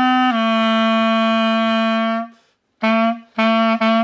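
Clarinet playing slow single notes: a held note steps down a tone and is held for about two seconds, then after a short pause come four short detached notes.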